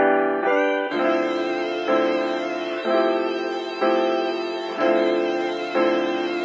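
Background music: sustained chords that change about once a second, each change struck anew.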